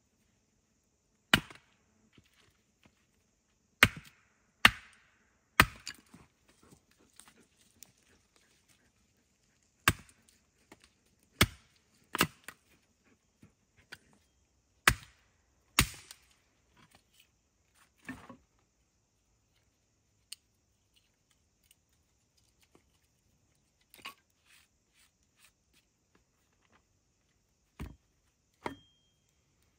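Wood being chopped by hand: about a dozen sharp, separate strikes at an irregular pace, coming thicker in the first half and more sparsely later.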